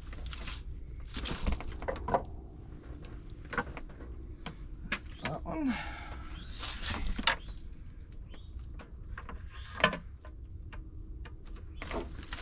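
Irregular clicks, knocks and rustling of hands working with wires and small parts.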